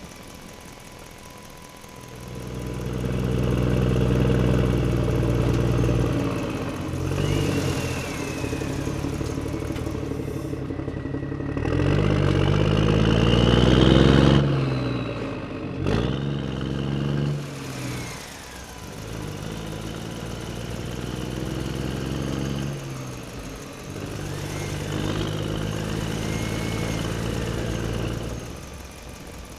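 Engine sound running in several stretches, rising in pitch to a revving peak about halfway through, then settling back down and fading near the end.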